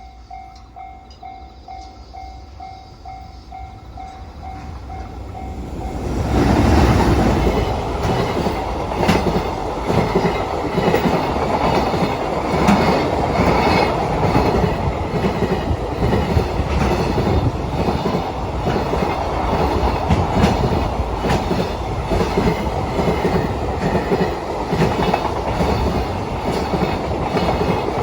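Japanese level-crossing warning bell beeping about twice a second. About six seconds in, a train arrives and runs through the crossing, wheels clattering over the rail joints and covering the bell until the end.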